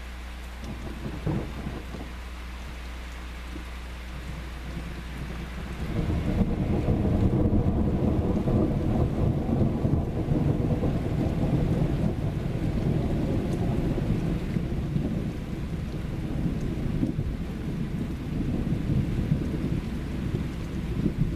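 Steady rain falling, with a long roll of thunder that rumbles in about six seconds in and keeps rolling, swelling and easing.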